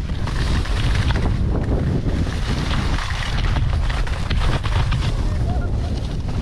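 Wind rushing over the microphone of a camera carried by a skier moving downhill, a heavy steady rumble. Skis scrape and hiss over packed, groomed snow underneath it.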